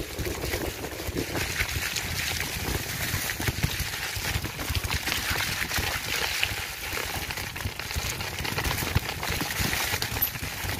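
Wind rushing over the microphone of a handlebar-mounted camera, mixed with steady knocking and rattling as the bike jolts over a rutted dirt trail.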